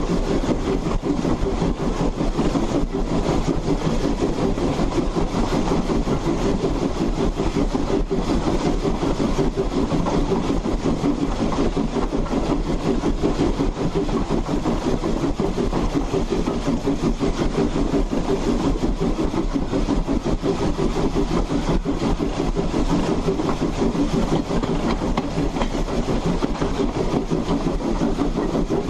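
Ex-Hammond Lumber Company 2-8-2 saddle tank steam locomotive under way, heard close up beside its running gear: a steady, dense rumble and clatter of driving wheels and rods on the rails.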